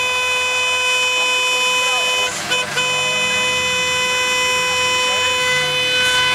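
A car horn held down in one long steady blare, broken off briefly about two and a half seconds in and then held again, over the noise of a slow line of traffic.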